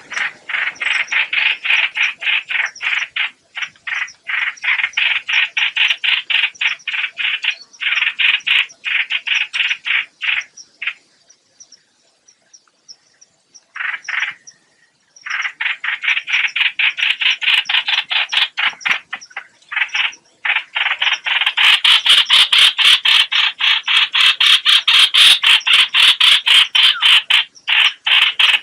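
Lure call of the hoạch hoạch bird, used for trapping: a harsh, rasping chatter of rapid pulses, about five a second, in long runs broken by short pauses, louder in the last third.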